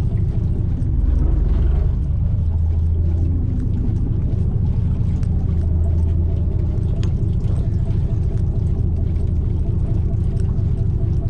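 Steady low rumble of a fishing boat's engine, a little stronger for a few seconds near the start, with a few faint clicks over it.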